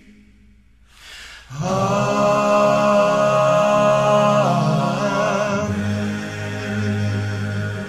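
Men's choir singing a long held final chord of a hymn. It enters after a short pause, about a second and a half in, moves to a new chord partway through, and is held to the close.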